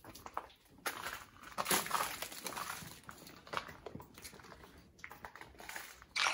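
Scattered soft crunches and rustles of people moving about: footfalls on a littered floor and the rustle of heavy winter coats, in short irregular bursts with no steady tone.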